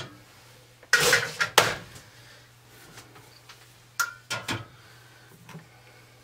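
Filled glass canning jars being set down into an aluminum pressure canner, knocking against the canner and rack. There are two knocks about a second in and a quick run of three around four seconds in.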